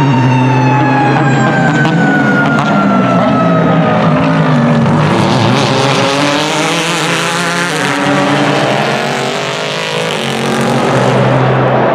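Race cars passing at speed, their engine notes dropping in pitch as they go by. The loudest rush comes as a pack of cars sweeps past in the middle.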